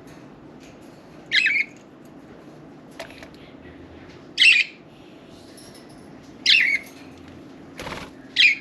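Budgerigars giving short, harsh squawking calls, four in all, spaced a second or two apart, with a couple of light taps or clicks between them.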